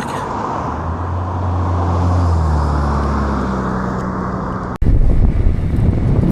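Strong gusty wind buffeting the microphone during an electric-unicycle ride. A low steady vehicle-like hum runs through the first few seconds. About three-quarters of the way in, the sound cuts out for an instant and is followed by heavy low wind rumble on the mic.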